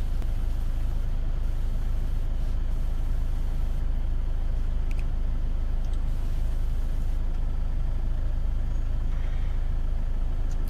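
Steady low rumble with a hiss over it, unchanging in level.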